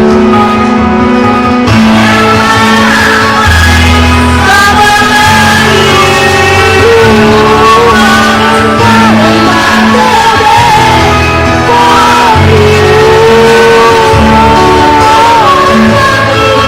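A singing voice over a pop backing track with a steady bass line, sung while the singer has a cough and an itchy throat.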